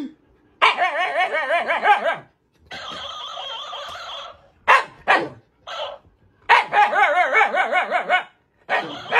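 Shiba Inu dog grumbling back in several long, warbling, yodel-like bouts with a few short yips between them. This is the breed's protesting 'talk-back' after being scolded.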